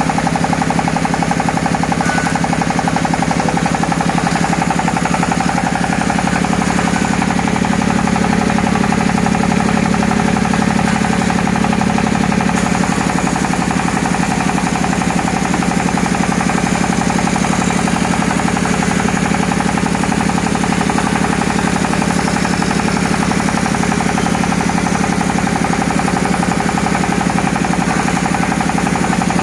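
A dowel-making machine running steadily, with a dense, fast mechanical chatter.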